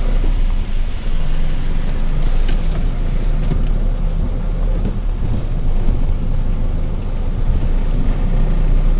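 A motor vehicle's engine running steadily with a low hum, with road noise.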